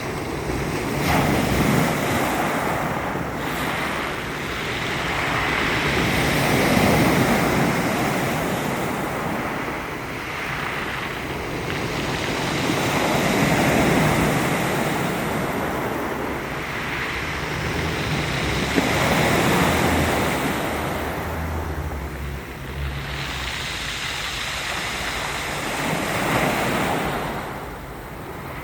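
Sea surf breaking on the shore, the noise swelling and falling away about every five to seven seconds. Wind buffets the microphone in places.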